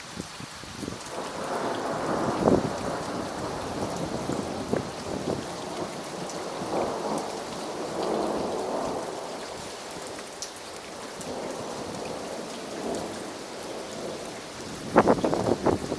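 Thunder rumbling in long rolling waves over steady falling rain, with a sharp crackling burst near the end.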